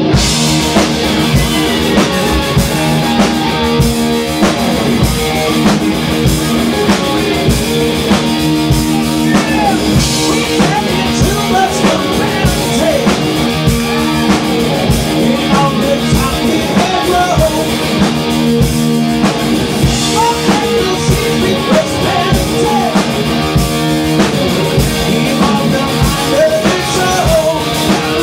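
Live heavy metal band playing loudly: distorted electric guitars and bass over a driving drum kit.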